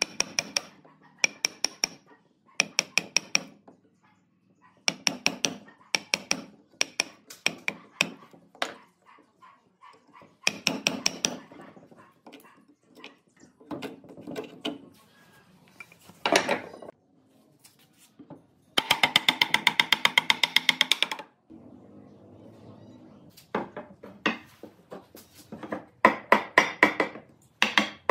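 Wooden mallet striking a chisel to chop a notch out of a wooden board, in short bursts of quick, sharp taps with pauses between them. About two-thirds of the way through there is a longer run of rapid taps.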